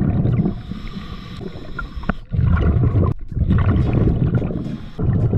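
Scuba diver breathing through a regulator underwater: exhaled bubbles bubbling loudly past the camera housing in several bursts, with a quieter hiss from the inhale between them.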